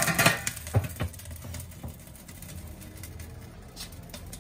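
Metal access door of a Weber bullet smoker being pushed shut: a few sharp metal clanks and scrapes in the first second. After that a low steady hum runs on.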